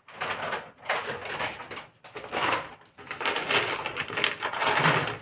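Packaging rustling and crackling as it is handled, in bursts with short pauses about one, two and three seconds in.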